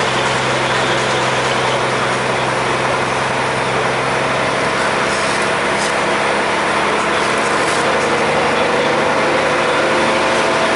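Vintage bus's engine labouring steadily as it climbs a hill under load.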